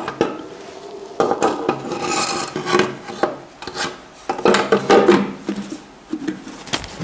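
Metal scraping and rubbing as a tractor's rocker oil line and its fittings are worked into place, in two longer scraping spells with a faint ringing.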